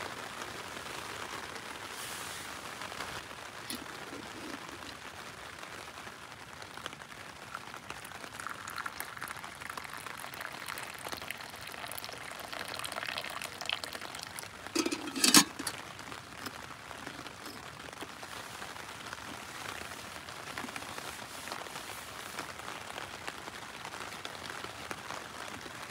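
Steady rain pattering on a tent, with hot tea poured into a wooden cup about halfway through, then a single sharp knock.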